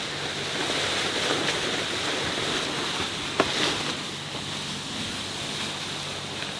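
Wind and sea noise on the deck of a sailing yacht under way, with a steady low hum underneath and a single sharp click about three and a half seconds in.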